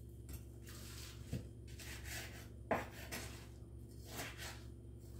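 Kitchen knife cutting through beef ribs on a wooden cutting board: faint scraping strokes, with two light knocks of the blade against the board.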